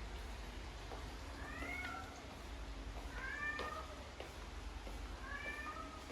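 Domestic cat meowing three times, each call short and rising in pitch, about two seconds apart.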